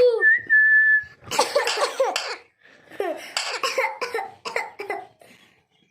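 Pet parrot giving a short steady whistle, then a run of raspy cough-like sounds, mimicking a human cough.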